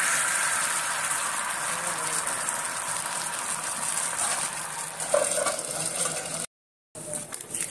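Thin rice batter sizzling on a hot cast-iron griddle pan, a steady hiss that slowly fades as the crepe sets. About five seconds in, a metal lid is set down over the pan, and the sound cuts out for half a second just after.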